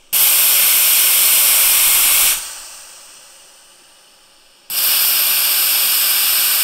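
Two bursts of compressed air hissing from a Mares XR power inflator as its inflate button is pressed, each about two seconds long, starting abruptly and trailing off. The valve has malfunctioned, so the air comes straight back out through the mouthpiece instead of staying in the wing.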